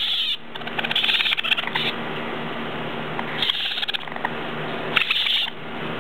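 Baby raccoons crying in short, high cries several times, with faint clicking and rattling from their claws on the wire cage bars.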